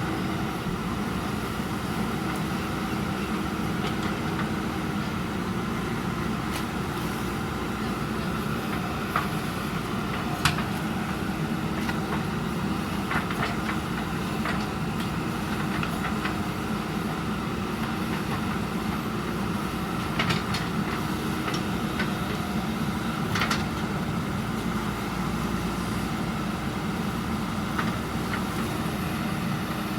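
JCB 3DX backhoe loader's diesel engine running steadily under work, with a handful of short sharp knocks scattered through it, louder around the middle and near the end.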